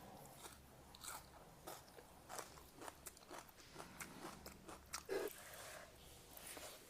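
A person chewing and biting a mouthful of chicken curry and rice close to the microphone: faint, irregular wet clicks and crunches, with one louder smack about five seconds in.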